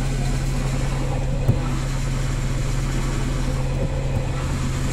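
Manual car's engine idling with the clutch pedal held down, and a faint steady squeal from the clutch release bearing, which is worn out and broken up. A light click about a second and a half in.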